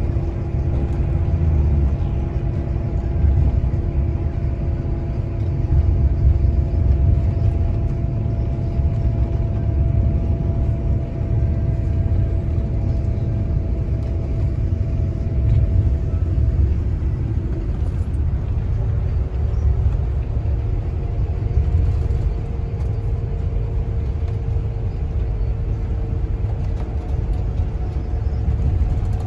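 Inside a coach's passenger cabin at highway speed: a deep, steady rumble of road and engine noise, with a faint hum above it that shifts pitch a little over halfway through.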